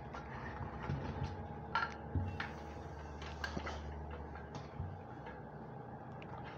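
Light clicks and knocks of aluminium window sections being picked up and handled on a workbench, scattered irregularly over a steady low hum.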